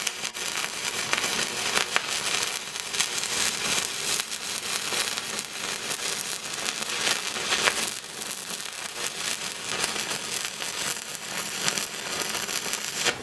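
Electric arc welder crackling steadily as it tack welds a stacked billet of wrought iron and high-carbon steel together.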